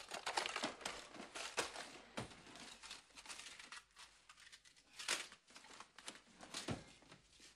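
Irregular crinkling and rustling, with scattered sharp crackles; the loudest come about two seconds in and again after five seconds.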